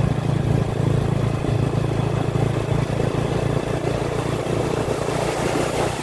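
An old motorcycle's engine running steadily, easing a little near the end, with surf washing onto the sand.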